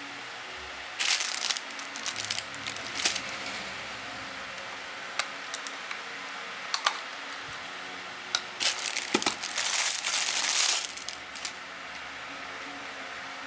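Packaging crinkling and rustling as the battery is unboxed, in two spells: one about a second in and a longer one about eight seconds in. A few sharp clicks fall between them.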